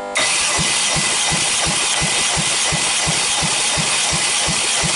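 Volvo B4164T 1.6-litre turbo four-cylinder engine being cranked over for a compression test on its fourth cylinder. The cranking starts abruptly and runs steadily with a hiss and about five even low pulses a second as the pistons come up on compression. The gauge builds to 12 kg/cm², a normal reading.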